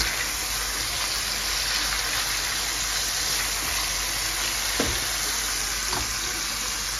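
Pork cubes sizzling steadily in hot oil in a sauté pan, stirred with a silicone spatula. Two light knocks about five and six seconds in.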